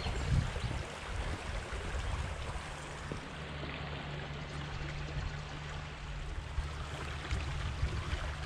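Small river rippling over stones and shallows: a steady rush of water, with a low steady rumble underneath.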